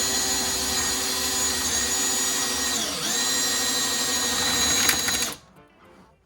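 Electric drill running at speed as the bit cuts into the airplane's structure. Its pitch dips twice as the bit bites, and it stops about five seconds in. The cutting sounds crunchy.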